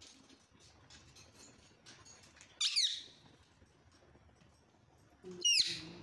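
Caged parakeets giving two short, loud, harsh squawks about two and a half seconds apart, each a quick run of gliding notes, with faint clicking and rustling between them.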